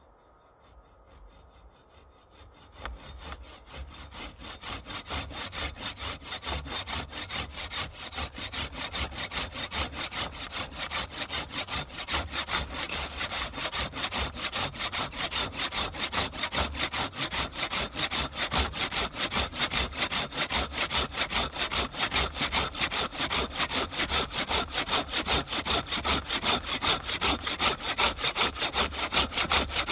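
Wood being cut with a hand saw in quick, even strokes, about three or four a second. It starts faint and grows louder over the first few seconds.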